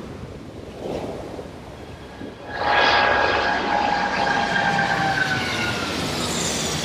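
Twin-engine jet airliner passing low overhead on its takeoff climb. The jet engine noise swells sharply about two and a half seconds in and carries a high whine that slowly falls in pitch as the plane goes over, easing off near the end.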